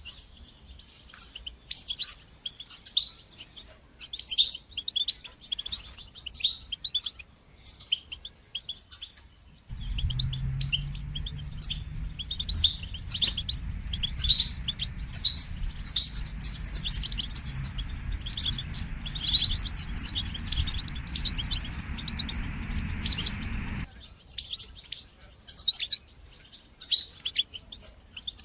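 European goldfinch singing: a fast, continuous series of short, high twittering chirps. About ten seconds in, a steady low rumble starts under the song and cuts off suddenly some fourteen seconds later.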